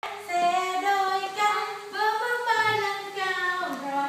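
A young child singing a few long, drawn-out notes in phrases that slide up and down in pitch.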